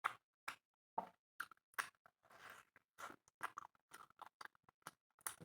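A person chewing a mouthful of chicken and rice close to the microphone: quiet, irregular wet mouth clicks and smacks, several a second.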